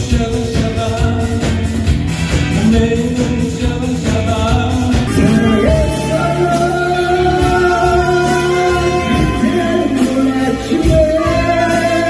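Amateur live band playing in a small club, with a man singing over a drum beat; from about halfway a trumpet plays long held notes.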